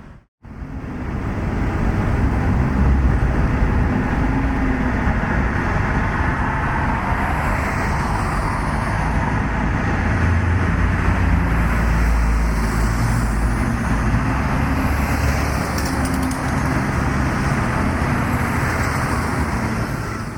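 Motorcycle engine running while under way, with steady road and wind noise; the engine pitch rises and falls a few times.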